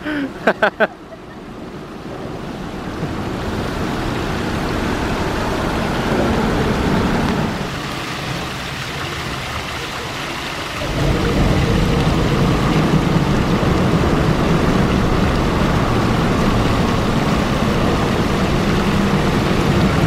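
Waterfall: a steady rush of water spilling down a rock cascade. It swells in over the first few seconds, then about 11 seconds in grows louder and deeper.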